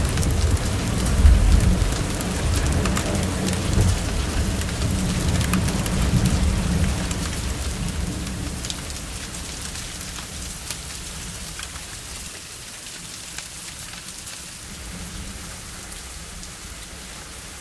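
Heavy rain pouring onto a paved patio and standing puddles, an even hiss full of small drop ticks. A deep rumble runs under it for the first half, then dies away. The whole sound eases steadily toward the end.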